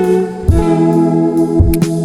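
Background instrumental music with sustained melodic notes and a couple of low drum hits.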